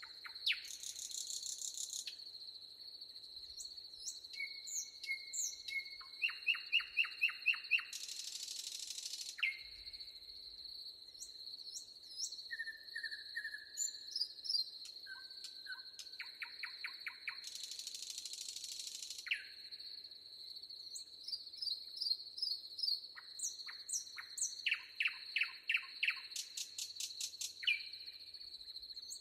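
Birds chirping and trilling in many short calls and rapid note series over a steady, high insect trill. Twice a burst of hiss lasts about two seconds.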